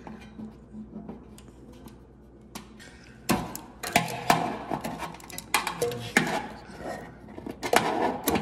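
Metal clinking, knocking and scraping against a furnace's sheet-metal blower housing as a small fitting is forced into a square hole in it. The sound is quiet for about three seconds, then comes as a busy run of sharp clinks and knocks until near the end.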